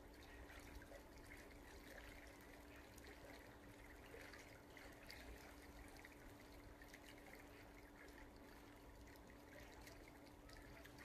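Near silence: faint outdoor background with a low steady hum and a faint trickle of water.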